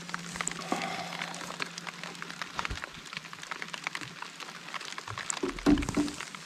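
Rain falling, with many scattered drop ticks. A faint steady hum stops about two and a half seconds in, and a louder thump comes near the end.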